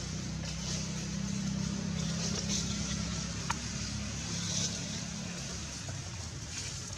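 A motor vehicle's engine running steadily with a low hum that fades out about five seconds in, with a single sharp click about halfway through.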